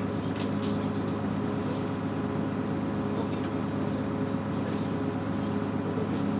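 Scania CN113CLL city bus engine running steadily, its pitch unchanging, with a few faint clicks about half a second in.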